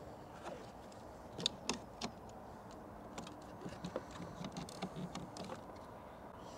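Faint, scattered clicks and light knocks, with a few soft thuds, from objects being handled.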